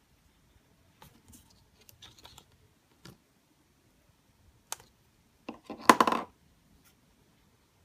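Small handling sounds of paper crafting: light clicks and brief scratching as a glue stick is worked over a paper piece, then a louder short clatter about six seconds in as the glue stick is put down.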